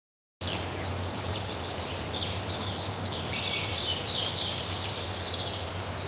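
AI-generated (MMAudio text-to-audio) soundscape of birds chirping over the steady rush of a stream, starting abruptly about half a second in, with a low hum beneath.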